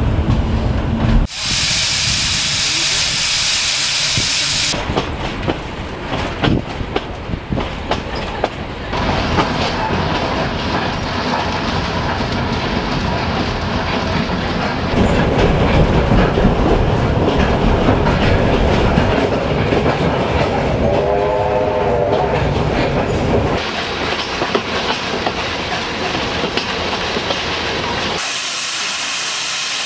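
Steam-hauled heritage passenger train heard from its carriages: carriage wheels clattering and rumbling on the rails. A loud hiss of steam comes about a second in and lasts a few seconds, a short wavering pitched tone sounds about 21 seconds in, and another steam hiss starts near the end.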